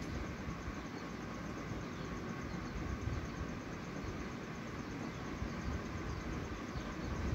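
Ballpoint pen drawing curved lines on ruled notebook paper, its tip scratching across the page over a steady background noise.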